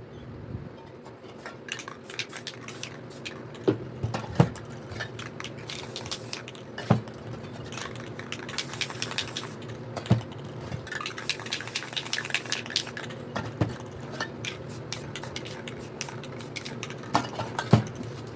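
Spray paint cans being handled: quick rattling clicks and several sharp knocks, the loudest about four seconds in and near the end, with two stretches of spray hiss near the middle.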